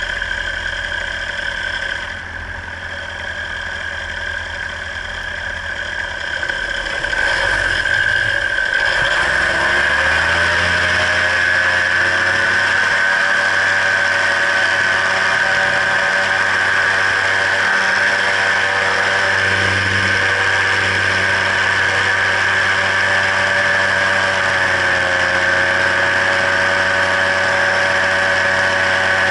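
Paramotor engine and propeller running at part throttle, then opened up about eight to ten seconds in, the pitch rising to a loud, steady full-power drone with a high whine for the take-off climb.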